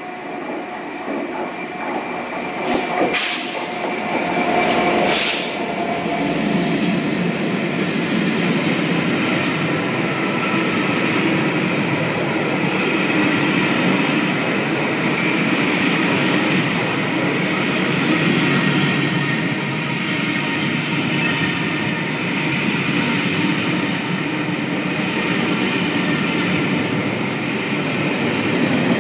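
Class 67 diesel locomotive passing through a station at speed at the head of a passenger train: two short loud bursts about three and five seconds in as it draws level, then a long rake of coaches rolling past with steady wheel and rail noise.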